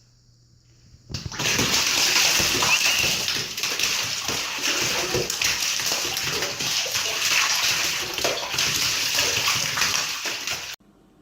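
Water running and splashing for about ten seconds, starting a second in and cutting off abruptly.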